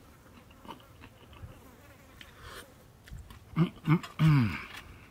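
A man chewing a burger with small wet mouth clicks, then three short "mm" hums of enjoyment, each falling in pitch, about three and a half seconds in.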